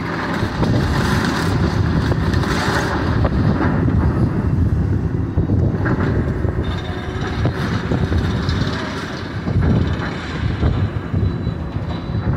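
Demolition excavator with a grapple working a rubble pile: its diesel engine rumbles steadily, with scattered knocks of debris being handled.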